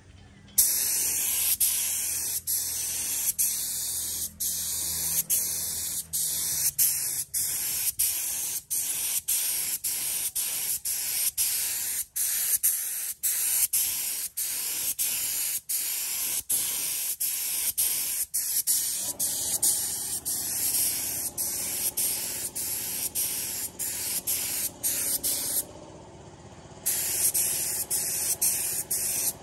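Gravity-feed paint spray gun hissing as compressed air sprays paint, in repeated passes broken by many brief dips where the trigger is eased off, with a pause of about a second near the end. A low steady hum joins about two-thirds of the way through.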